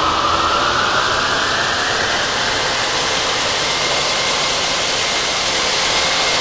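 Electronic music: a dense, steady wash of noise with a thin tone that rises slowly in pitch over the first couple of seconds, then holds.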